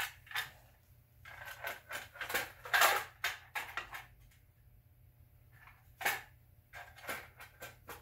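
Clear plastic distributor cap handled and fitted onto a GM HEI distributor: a run of sharp plastic clicks and knocks, loudest about three seconds in, then a few scattered clicks.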